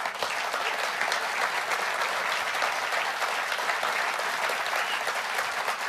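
A large seated audience applauding, a dense, steady clatter of many hands clapping that sets in abruptly.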